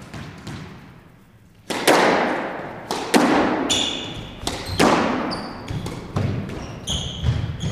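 Squash rally: sharp cracks of the ball struck by rackets and hitting the court walls, echoing in the enclosed court, starting about two seconds in. Short sneaker squeaks on the hardwood floor come between the shots.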